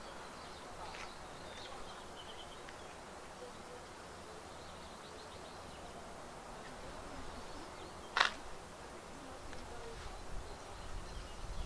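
Quiet outdoor ambience: a steady low hiss with a few faint high chirps, and a single sharp crack about eight seconds in.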